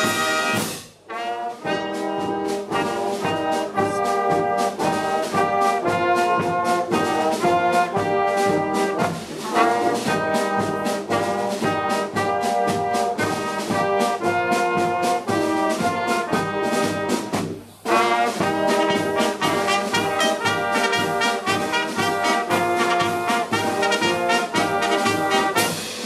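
Brass band of trumpets, larger brass horns and a sousaphone playing a piece in short, detached chords, with two brief stops: about a second in and at around 18 seconds.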